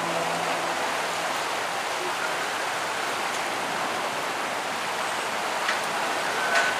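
Steady rush of water running and splashing through a river rapids ride's channel. A low hum dies away about half a second in, and there are a couple of light clicks near the end.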